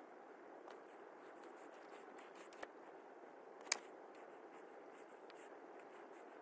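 Faint scraping and light clicks of a small hand tool working a thin plastic model car body, with one sharper click about three and a half seconds in.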